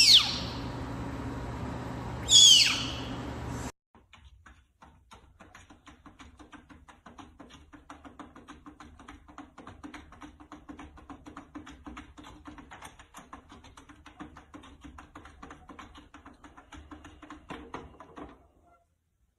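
A snow leopard cub gives two high cries that fall steeply in pitch, about two and a half seconds apart. Then a cat paws at a plastic cat flap: faint, rapid, uneven tapping and scratching.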